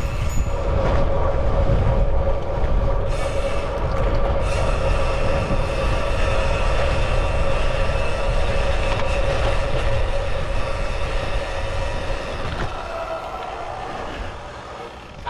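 Wind rushing over the microphone of a camera mounted on a moving road bike, with a steady whine running through it. The sound eases off somewhat in the last few seconds.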